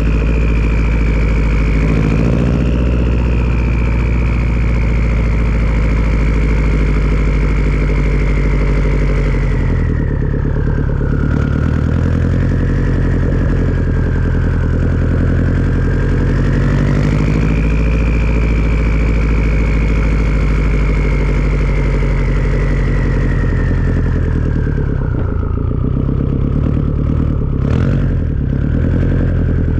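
Turbocharged Subaru engine running through a Tomei turbo-back exhaust, with a high turbo whistle over the engine note. The whistle sinks in pitch about ten seconds in, climbs again about seven seconds later, and falls away toward the end.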